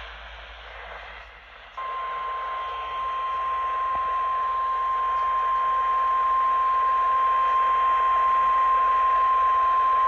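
A Midland GXT two-way radio's speaker receiving a NOAA Weather Radio Required Weekly Test. There is radio hiss, and then, about two seconds in, the weather radio's warning alarm tone begins: one steady, unbroken high tone that holds over the hiss.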